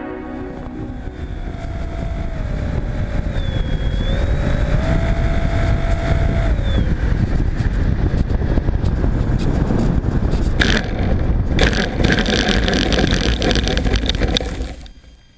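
Wind rushing over the microphone of a camera mounted on a Skywalker FPV model plane in flight, with the electric motor's thin whine dipping in pitch and coming back up. The rush gets harsher near the end, then falls away suddenly.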